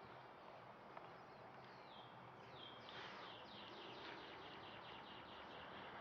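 A bird singing faintly: a trill of short, high, down-slurred notes repeated about five times a second for a few seconds, over quiet outdoor ambience.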